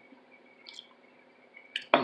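A person taking a drink: a faint swallow about two-thirds of a second in, then a click and a sharp mouth sound just before the end.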